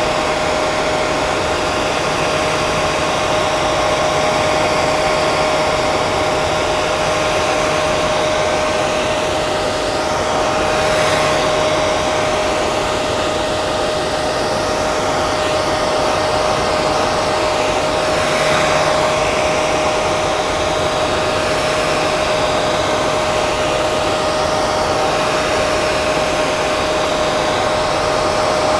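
Hair dryer running steadily: an even rush of air with a constant whine from the motor, the airflow shifting slightly now and then.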